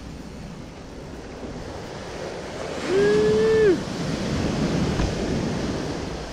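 Ocean surf washing onto the beach, with wind buffeting the microphone. About three seconds in, a short held high-pitched tone, the loudest sound here, drops away at its end.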